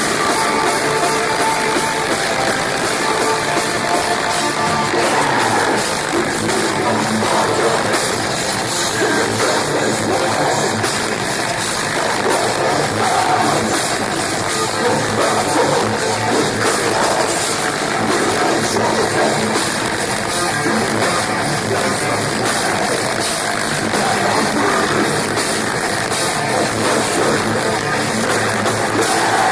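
Metalcore band playing live: distorted electric guitars, drum kit and vocals, loud and continuous.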